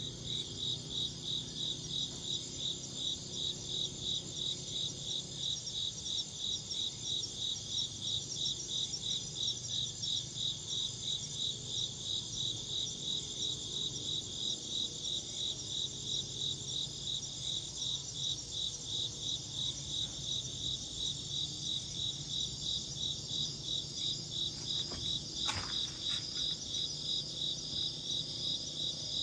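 Insects chirping in a steady pulsing rhythm, about three chirps a second, over a higher continuous insect trill. A brief falling whistle sounds once about 25 seconds in.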